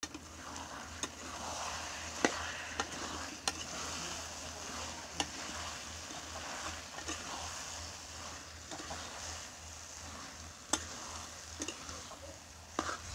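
Chicken and potato curry sizzling in an iron kadai, stirred with a long metal spatula. Sharp clicks of the spatula striking and scraping the pan come every second or two, the loudest about two seconds in.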